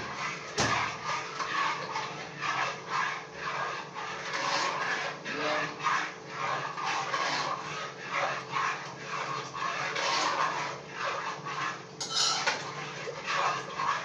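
A spoon scraping round a container in steady repeated strokes, about two a second: stirring sugar into pineapple juice to dissolve it.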